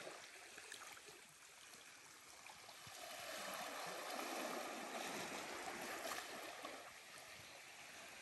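Quiet lapping of small, gentle sea waves washing over sand and rocks at the water's edge, swelling for a few seconds midway and then easing off.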